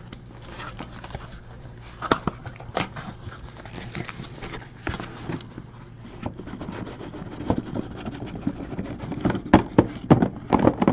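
Cardboard shipping case being opened by hand and the sealed card boxes inside lifted out and stacked: scattered scrapes and knocks of cardboard, with a quick run of sharper knocks near the end as the boxes are set down on one another.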